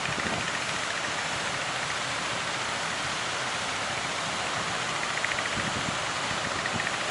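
Steady rushing of surf and strong wind at the sea mouth of an estuary.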